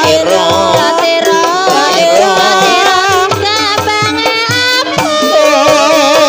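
Live Javanese gamelan music accompanying an ebeg dance: bronze metallophones and a hand drum play a steady rhythm under a singer's wavering, vibrato-laden melody.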